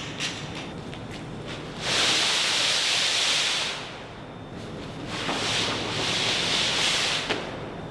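A large printed sheet dragged across the floor in two long pulls, each a rushing scrape of a couple of seconds, with a short pause between them.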